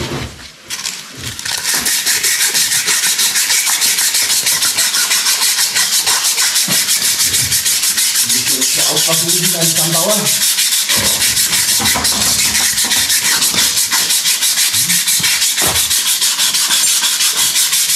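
Strip of abrasive cloth pulled back and forth around a steel shaft, shoe-shine style: an even rasping of about four strokes a second, starting about a second and a half in.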